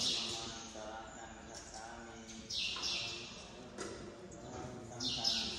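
Buddhist monks chanting together in a low, level-pitched monotone, with three short high hissing bursts about two and a half seconds apart.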